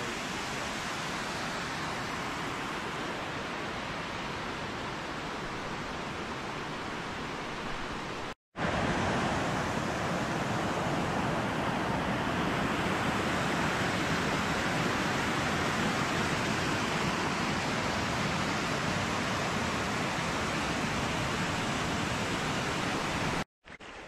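Waterfall cascading down a rocky woodland gully: a steady rush of falling water. It breaks off for a moment about eight seconds in, comes back louder, and cuts off shortly before the end.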